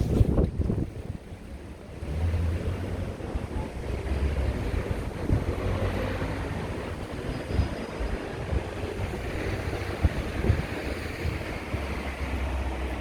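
Wind buffeting the microphone in gusts, over a steady background of outdoor street noise.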